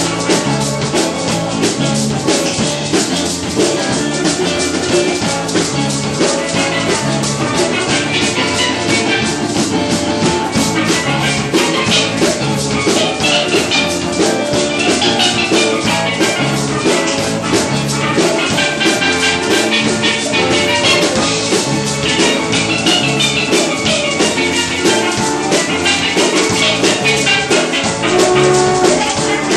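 Live band music: a steel pan plays the melody over a drum kit keeping a steady beat.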